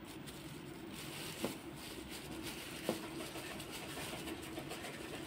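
Thin plastic bag crinkling softly as fingers pick at its tied knot, with two small ticks about a second and a half apart, over a faint steady hum.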